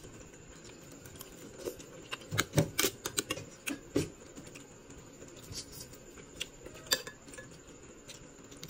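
Quiet eating sounds: scattered small clicks, taps and smacks from a spoon on a plate, chewing and fingers handling cooked shrimp.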